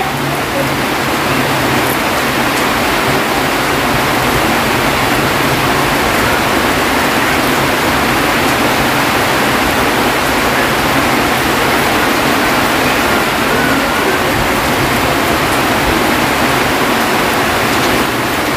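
Rain falling, a loud steady hiss.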